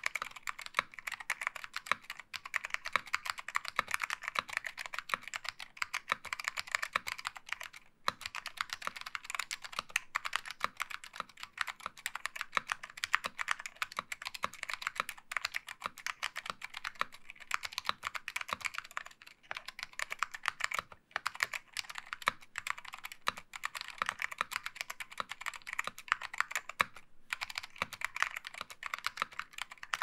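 Continuous typing on a mechanical keyboard with unlubricated SKCM Orange Alps switches, an integrated aluminium plate, Apple AEK keycaps and no sound dampening: a dense run of crisp keystroke clacks, broken by a few brief pauses.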